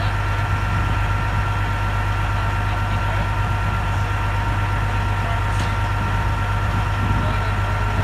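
Semi truck's diesel engine idling, a steady low hum with no change in speed.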